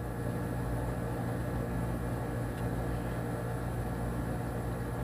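Steady low electric hum with an even hiss: background room noise with no other event.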